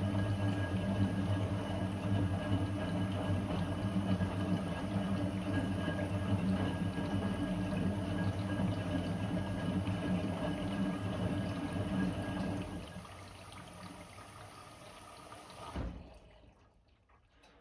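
Blomberg WA391 washing machine running with a steady hum and water rushing through it. The hum fades about thirteen seconds in and cuts off with a click near the end.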